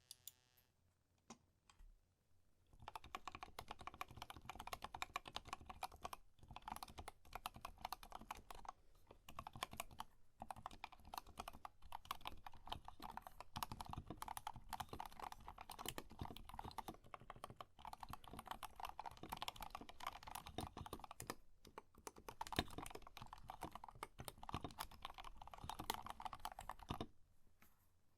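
Fast, continuous typing on a Tokyo60 mechanical keyboard with Gateron North Pole 2.0 Yellow linear switches. A few single key presses come first, the steady run of keystrokes starts about three seconds in, and it stops just before the end.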